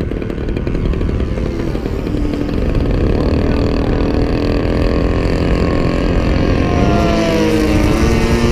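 Gas engine of a large radio-control model airplane in flight, its pitch gliding upward near the end as it comes closer or speeds up, over a steady low rumble.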